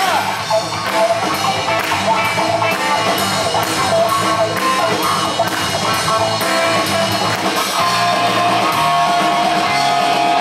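Music playing loud, with a steady drum beat and guitar.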